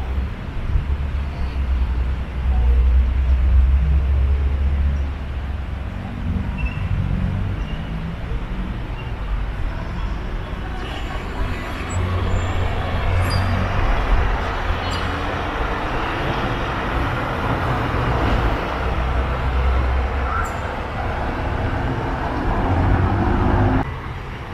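Town-centre street ambience: motor traffic passing, with an uneven low rumble throughout. The traffic noise swells in the second half and drops off abruptly near the end.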